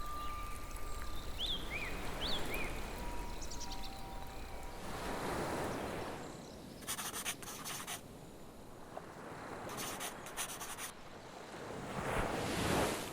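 Ambient experimental-film soundscape of rushing, surf-like noise that swells and fades twice. A few short chirps come about two seconds in, and two short bursts of crackle follow in the middle.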